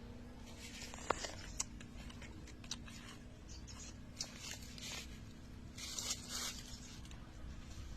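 Close handling noises: several short bursts of rustling or crinkling and scattered sharp clicks over a faint steady hum.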